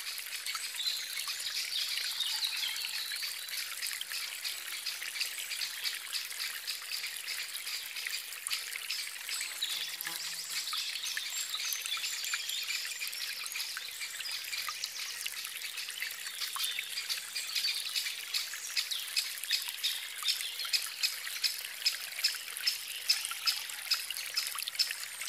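Shallow stream water trickling steadily. From about two-thirds of the way in, a regular series of soft taps joins it, about one and a half a second.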